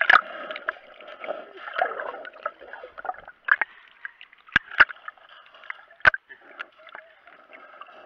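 Seawater sloshing and gurgling around an action camera in a waterproof housing as it dips between the surface and underwater, heard muffled, with five sharp knocks, three of them close together near the middle.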